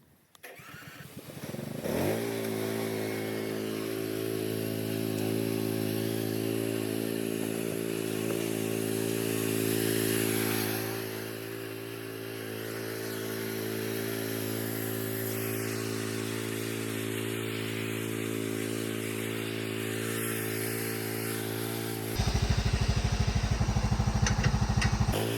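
Chainsaw starting up about two seconds in, its pitch rising as it catches, then running at a steady speed. Near the end there is a louder, rougher stretch of about three seconds.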